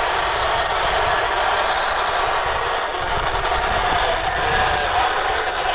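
Wind buffeting the microphone in an uneven low rumble, over a steady hiss.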